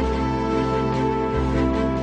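Background music: sustained pitched chords over a bass line that changes note about a second and a half in.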